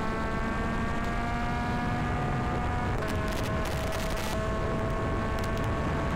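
Motorcycle engine running on the move, its note climbing slowly and then stepping down about halfway through as it shifts gear, over a steady rush of noise.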